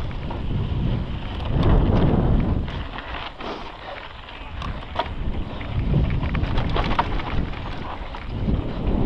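Wind buffeting the microphone as a mountain bike rides fast down dusty singletrack, with the tyres running over loose dirt and stones and the bike rattling in sharp clicks over the bumps. The wind noise eases for a moment about three seconds in, then builds again.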